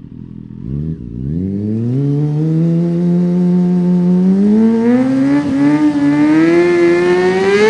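Kawasaki Ninja sport bike's engine revving up about a second in and then held at high revs for a burnout, its pitch slowly creeping higher with a brief dip about halfway.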